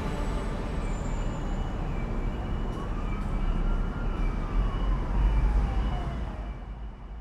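A warning siren sounds one slow wail, rising and then falling in pitch, faintly through a steady rushing hiss and rumble. The noise fades down near the end.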